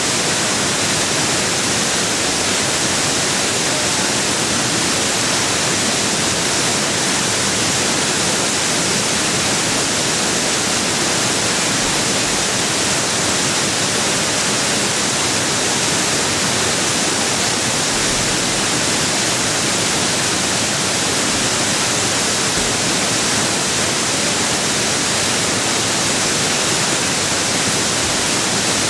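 Waterfall: a steady, even rush of falling water, heaviest in the high hiss.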